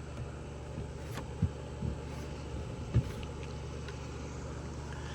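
Steady low background hum with a few short, light knocks and clicks scattered through it.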